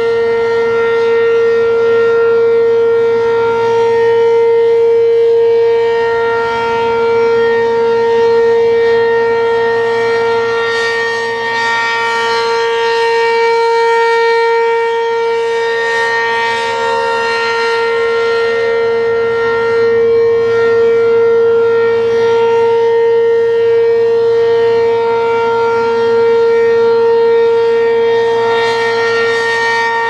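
American Signal RM-127 rotating outdoor warning siren sounding a steady alert tone, one unchanging pitch. Its loudness swells and fades slowly as the siren head turns.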